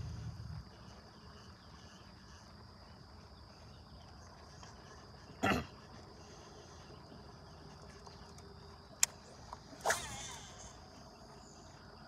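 Steady high-pitched insect chorus, like crickets, with a low rumble fading out in the first half-second. Three short sharp sounds stand out above it: a loud knock about halfway through, a sharp click near the end, and another knock with a brief ringing tail just after.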